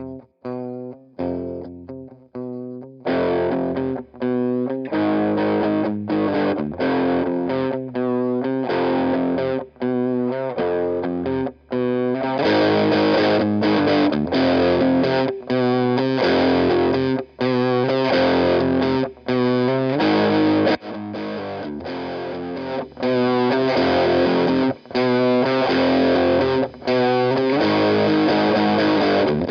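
Electric guitar played through a Walrus Audio Iron Horse LM308 distortion pedal: a few short, clipped distorted chord stabs at first, then a riff of held distorted chords broken by brief stops, fuller from about halfway in.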